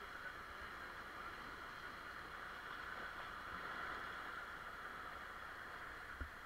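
Steady rush of river whitewater around an inflatable raft, with a single brief low thump about six seconds in.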